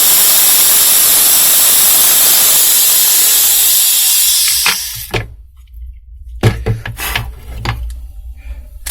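Cordless drill/driver boring a 5 mm hole through the quick-release clamp's cheeks, running steadily and then stopping about four and a half seconds in. A few scattered knocks and clicks from handling the clamp and drill follow.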